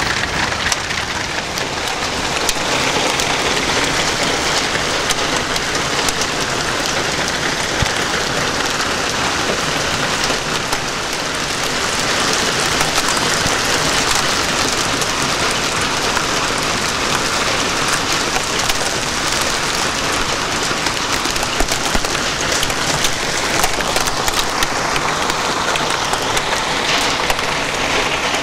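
Heavy hail mixed with pouring rain pelting corrugated roofing sheets and the ground: a dense, steady clatter of countless small impacts, slightly louder from about twelve seconds in.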